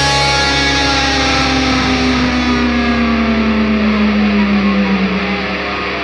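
Closing chord of a rock theme tune: guitar ringing out, one held note sliding slowly down in pitch while the sound gradually loses its brightness.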